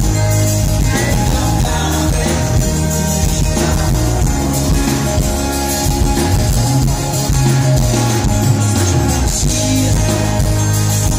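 Live pop-rock band playing an instrumental passage of a song, with acoustic and electric guitars, bass guitar and drums, steady and loud.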